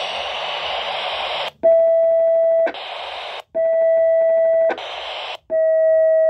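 Handheld CB radio's speaker hissing with static. Then a steady beep tone sounds three times, about a second each, with short bursts of static between.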